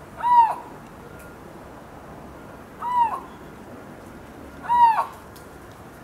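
Siberian lynx calling: three short cries a couple of seconds apart, each rising and then falling in pitch.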